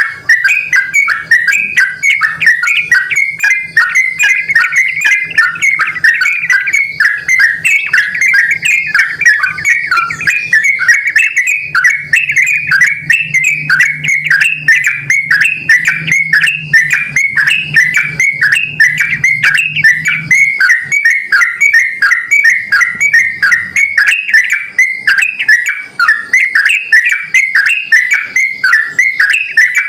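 Yellow-vented bulbul (trucukan) singing in full, energetic 'gacor' voice: a loud, unbroken stream of quick chirping, whistled notes. This is the call played to make other bulbuls answer.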